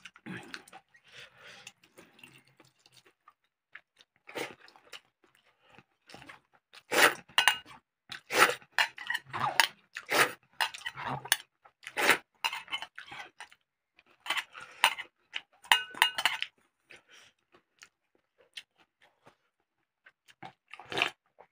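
Close-miked chewing and crunching of mouthfuls of pakhala (fermented water rice) eaten by hand, in irregular crackly bursts that come thickest and loudest through the middle.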